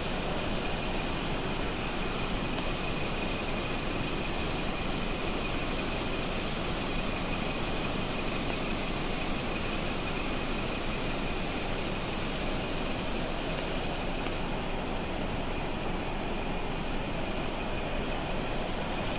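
Steady rushing noise of a vehicle driving along a mountain road, heard from inside the vehicle; the high hiss thins out about fourteen seconds in.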